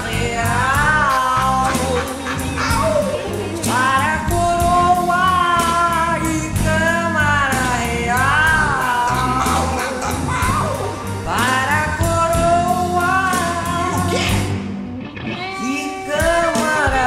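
A woman singing a blues number with a live band behind her, holding long notes that bend and waver over a steady bass and drum groove, with a short lull about fifteen seconds in.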